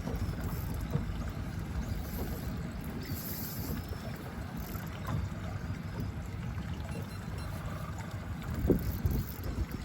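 Wind buffeting the microphone outdoors by the water, a steady low rumble, with a short louder bump near the end.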